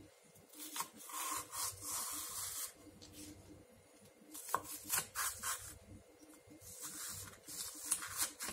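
Kitchen knife slitting green onion stalks lengthwise on a wooden cutting board, the blade scraping along the stalks and the board in three bouts of drawn strokes, with a few sharper ticks.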